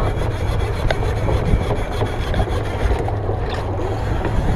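Large spinning fishing reel being cranked by hand close to the microphone, a continuous rasping grind from its handle and gears, over a heavy low rumble of wind and boat noise.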